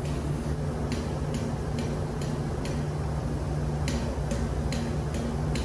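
Steady low hum of ship engine-room machinery, with a regular light clicking about twice a second starting about a second in and pausing briefly midway.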